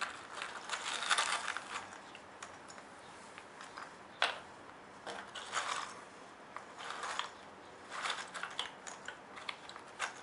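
Small wooden posts clicking and rattling together as a hand rummages through them in a compartmented wooden tray, in short, irregular bursts.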